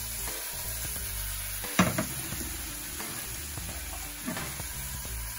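Scallops sizzling in a hot non-stick frying pan as they glaze in chilli jam, the pan shaken and a spatula stirring through them, with a single sharp knock a little under two seconds in.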